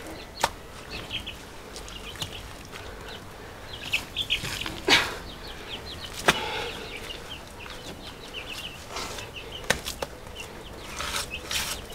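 Wet clay mud being pressed and slapped by hand, with a few sharp slaps, the loudest about five and six seconds in, while birds chirp throughout.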